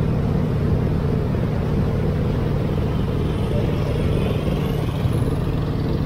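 A tour boat's motor running steadily, giving an even, unchanging low drone.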